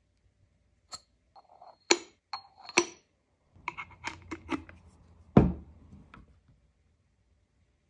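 Metal-on-metal clicks and taps from a 1Zpresso K-Ultra hand coffee grinder as its crank handle is fitted onto the top; a few of them ring briefly, and there is a quick run of clicks near the middle. About five seconds in comes one heavier thud as the grinder is set down on the wooden table.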